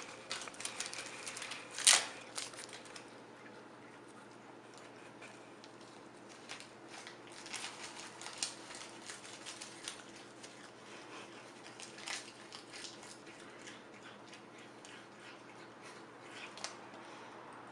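Scattered light clicks and crinkling over a low steady hum, with one sharp click about two seconds in.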